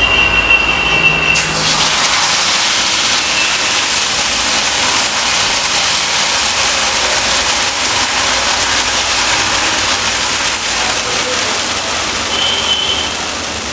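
Moong dal dosa batter sizzling on a hot cast-iron dosa griddle. The sizzle starts suddenly about a second and a half in, as the batter hits the pan, and carries on steadily while it is spread out.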